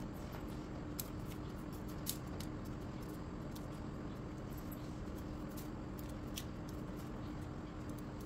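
Small, scattered clicks and scrapes of a kitchen knife paring the skins off garlic cloves, with a steady hum under them.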